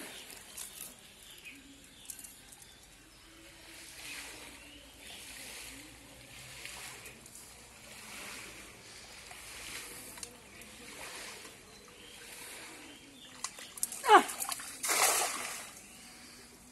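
A hand-thrown cast net's weighted rim splashing down onto a pond near the end in a brief rush of spray. Just before it comes a sharp click with a short falling tone, the loudest moment. Before that there is only faint low rustling.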